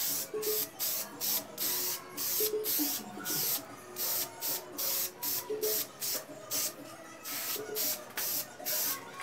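Aerosol can of matte black spray paint hissing in quick short bursts, a few each second, as the nozzle is pressed and released over and over.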